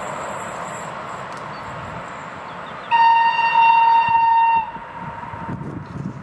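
Historic train's whistle sounding one long, steady, loud note about three seconds in. The note lasts under two seconds and dips slightly in pitch as it cuts off. Underneath is the fading running noise of the train pulling away downhill.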